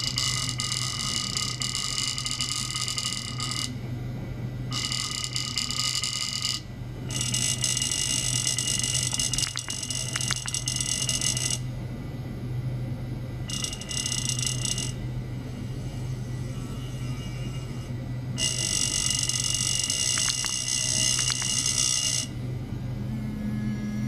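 Stainless-steel pipe set vibrating by an ultrasonic oscillator, giving several steady high tones at once that switch on and off in stretches of one to four seconds, over a steady low hum.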